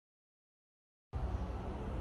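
Dead silence for about the first second, then a steady low rumble of room background noise starts abruptly.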